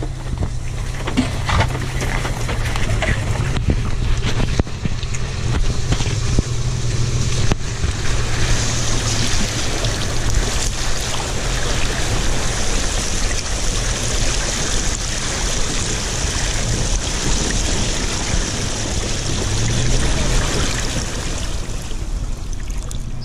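Off-road vehicle's engine running with a steady low drone as it wades through river water, the wheels churning up a constant rushing and splashing. The water rush gets louder about eight seconds in and eases near the end.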